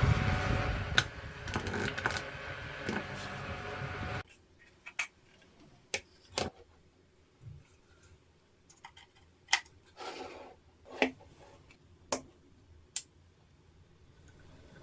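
A small motor running with a steady whir, cutting off suddenly about four seconds in. Scattered sharp clicks and taps of small parts being handled follow.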